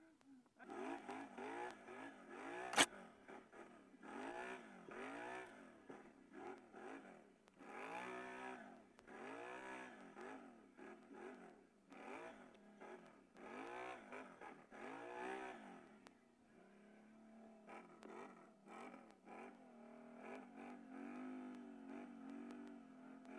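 Can-Am Renegade ATV's V-twin engine revving up and down over and over, with a single sharp knock about three seconds in. For the last several seconds the engine runs at a steadier pitch.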